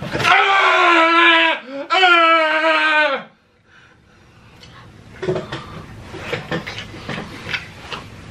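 A man wailing: two long, high cries, each about a second and a half, the second falling in pitch at its end. Faint scattered clicks and rustles follow.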